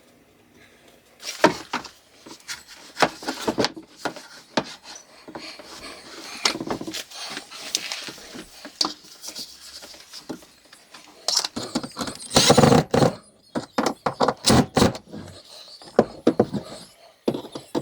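Peel-and-stick wallpaper being handled and smoothed onto a wardrobe door: irregular rustling and rubbing with light knocks and clicks, loudest a little past the middle.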